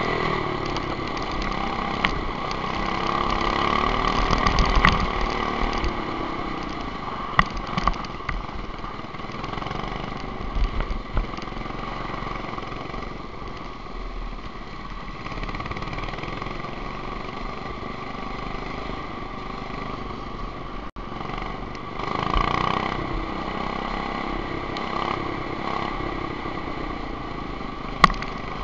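Racing go-kart engine running close to the microphone, its revs rising and falling as the kart laps the track. A few sharp knocks cut through it.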